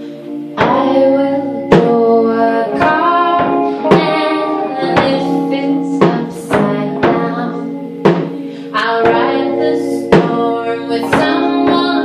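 Live band music: a woman singing over electric guitar and sustained chords, with drum strikes roughly once a second. The voice comes in about half a second in.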